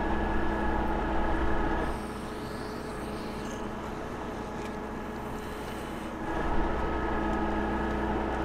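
An engine idling with a steady drone and a constant hum. It drops quieter for a few seconds in the middle, then comes back at the same pitch.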